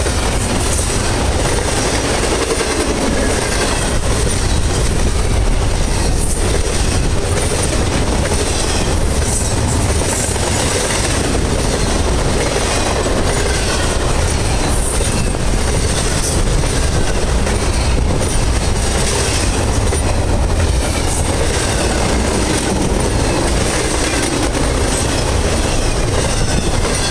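Double-stack intermodal container well cars rolling past on the rails: a steady, loud rumble of steel wheels with a repeating clickety-clack as the wheels cross the rail joints.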